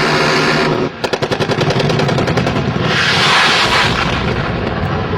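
AH-1 Cobra attack helicopter firing its nose cannon in a rapid burst, sharp shots about ten a second, over the steady noise of the helicopter, with a louder hissing swell near the middle.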